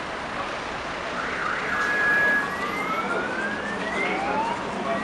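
An emergency vehicle siren starting up over steady street traffic noise: a short steady tone about two seconds in, then slow rising wails that repeat.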